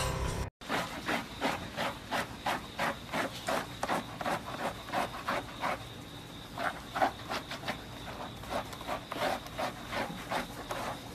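A bath brush scrubbing a wet, soapy golden retriever's coat in a tub of water: rhythmic rubbing strokes, about three a second.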